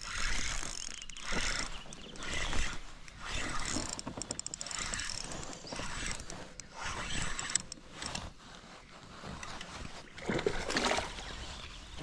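A kayak paddle dipping and splashing in creek water, stroke after stroke.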